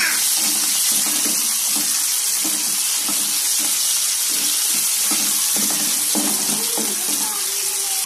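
Sliced onions, green chillies and curry leaves sizzling steadily in hot oil in a pan while a spoon stirs them, with short repeated scrapes of the spoon.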